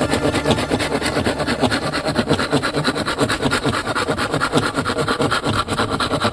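Small hand saw cutting through wood in quick back-and-forth strokes, making a steady scraping rasp.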